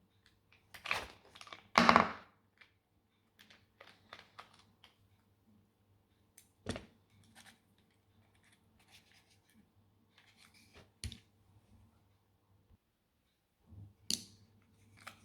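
Hands fitting and tensioning the chain and bar of a drill chainsaw attachment: scattered clicks, rattles and scrapes of metal parts, with the loudest rattle about two seconds in.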